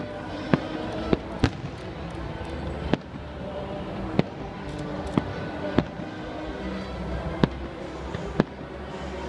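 Aerial firework shells bursting with sharp bangs at uneven intervals, about nine in all.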